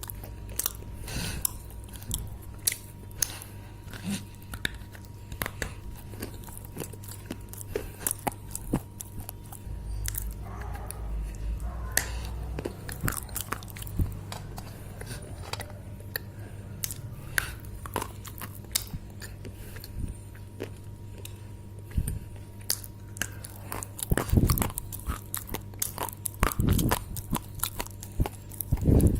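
Dry clay crunching close up: a dense run of sharp cracks and crumbles, with a louder cluster about three-quarters of the way through.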